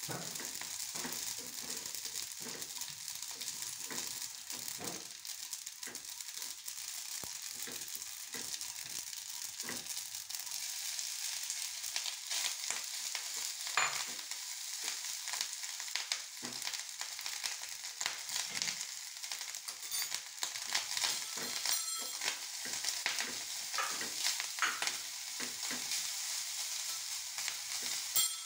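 Tempering of mustard seeds, dal and curry leaves sizzling in hot oil in a non-stick kadhai while a spatula stirs and scrapes it, with frequent short scraping strokes over a steady sizzle. Part way through, boiled rice has gone into the pan and is stirred through the tempering.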